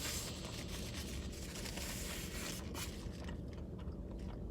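Someone eating a sandwich: soft rustling and scraping of the paper wrapper, fading toward the end, over a low steady hum.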